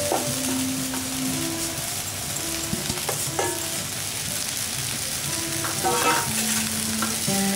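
Oil sizzling in a pan as freshly added idiyappam is stirred into the fried tempering with a wooden spatula, with a few scrapes of the spatula against the pan about three seconds in and again near six seconds. A faint background tune plays underneath.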